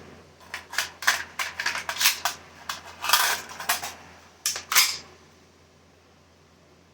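An AR-15 being worked by hand, its bolt locked back on an empty magazine: a run of sharp metallic clicks and clacks for about five seconds, the loudest near the end.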